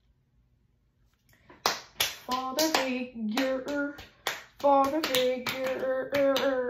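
A child humming a tune in held notes, with sharp clicks made by the hands keeping a beat about twice a second. It begins after a second and a half of quiet.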